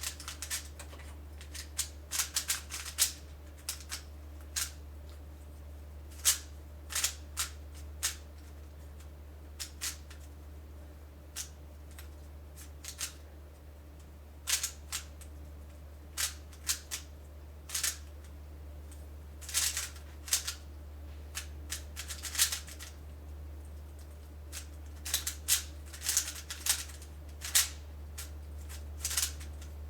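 A plastic 3x3 speed cube being turned by hand, its layers clicking and clacking in irregular clusters of sharp snaps. A steady low hum lies underneath.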